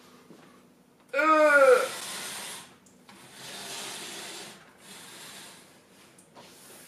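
A man's short wordless vocal sound of effort about a second in, followed by several long, hissing breaths.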